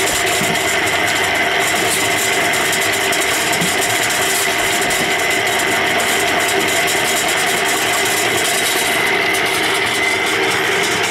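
Small drum concrete mixer running with a steady hum, its turning drum mixing sand, water and cement into mortar.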